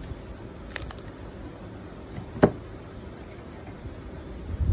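Handling noise as protective plastic film is peeled off a smartphone's back: a few light crackles about a second in, a single sharp knock about halfway through, and a dull bump near the end, over a steady background hum.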